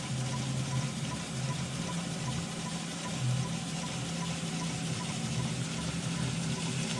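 Small model steam engine running steadily: a constant mechanical hum with a faint, even tick about three times a second.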